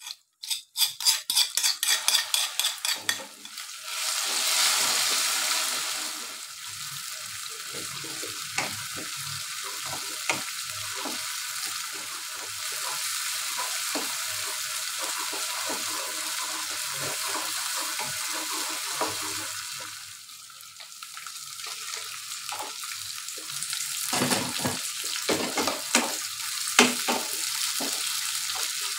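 Ground shallot, garlic and chili spice paste frying in hot oil in a wok: a quick run of sharp knocks in the first few seconds, a loud surge of sizzling about four seconds in as the paste hits the oil, then steady sizzling with the clicks and scrapes of a wooden spatula stirring. Near the end the sizzling and spatula clatter pick up as tofu cubes are stir-fried in the paste.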